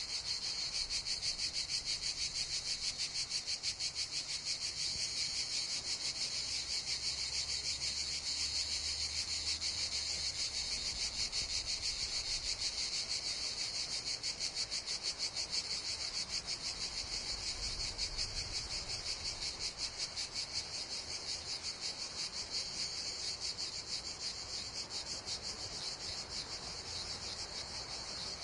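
Cicadas singing in chorus: a high, steady buzz made of very rapid pulses.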